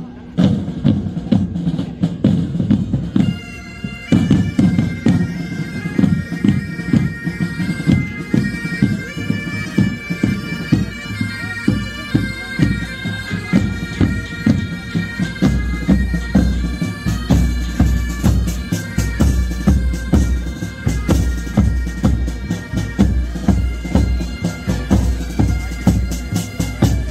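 Pipe band playing: the drums beat alone at first, then the bagpipes come in a few seconds in with a stepping melody over the drum rhythm. The bass drum grows heavier about halfway through.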